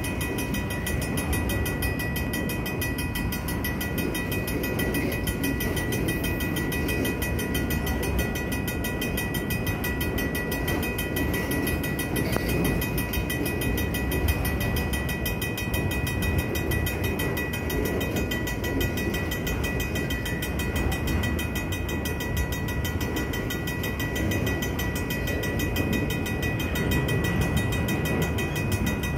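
Freight train of autorack cars rolling through a grade crossing with a steady rumble. Over it, the crossing's old mechanical bell rings fast and without pause.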